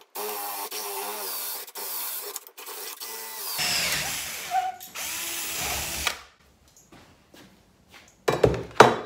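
Cordless drill driving a long paddle bit at an angle through a wooden post. For the first few seconds the motor whine rises and falls with the trigger. Then a rougher, louder noise as the bit cuts through and breaks out the far side, splintering the wood. Near the end, a few loud knocks.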